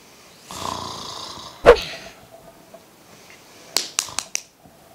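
A person snoring: one long snore that ends in a short, very loud snort a little under two seconds in. A few quick sharp clicks follow about four seconds in.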